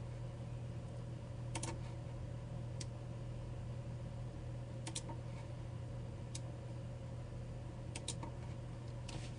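Sparse clicks of computer keyboard keys and mouse buttons, single and in quick pairs, a second or more apart, as vertices are grabbed and placed in Blender, over a steady low electrical hum.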